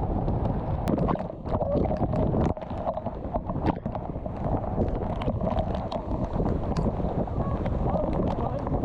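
Steady, heavy roar of a waterfall pouring into its pool close by, with many sharp splashes and clicks of water hitting near the camera.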